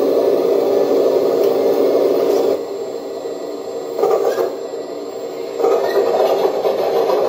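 Hydraulic pump of a radio-controlled Liebherr R970 model excavator running with a steady buzzing whine while the boom pushes the bucket down and tilts the machine up onto its tracks. It drops back about two and a half seconds in, swells briefly around four seconds, and rises again near six seconds.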